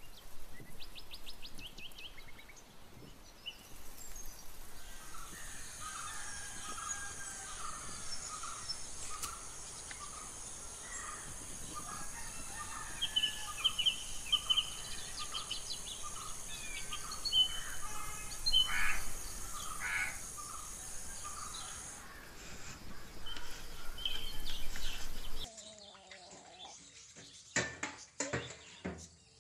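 Birds chirping and crows cawing over a steady high-pitched drone. A few seconds before the end it cuts to the clinking and clattering of plates being washed in a kitchen.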